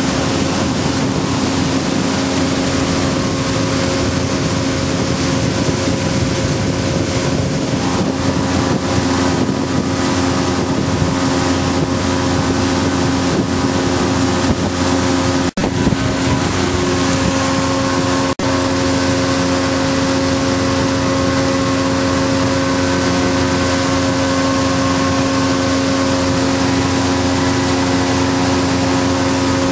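Motorboat engine running at a steady pitch, a constant hum over a rushing noise. The sound drops out briefly twice, around the middle.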